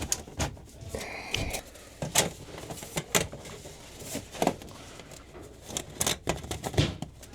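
Thin sheet-metal dryer vent pipe clicking and clanking as pieces are handled and pushed together, about one sharp knock every second or so.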